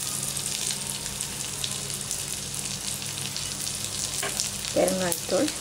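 Oil sizzling steadily in a stainless steel kadai as a tempering of mustard seeds, dals, peanuts, cashews and curry leaves fries, with many small scattered crackles.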